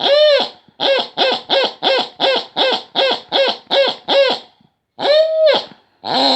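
A wheezing pig: squeaky, squealing wheezes, each rising and then falling in pitch. A longer one comes first, then a quick run of short ones at about three to four a second, then another long one near the end.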